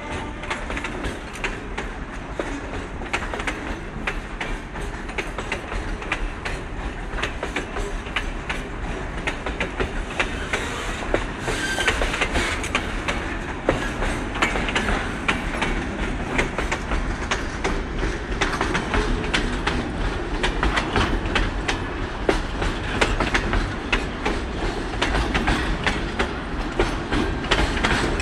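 Loaded ballast hopper wagons of a freight train rolling past, their wheels clicking over the rail joints in a steady clatter and rumble. A brief high wheel squeal comes about twelve seconds in, and the clatter gets a little louder from there on.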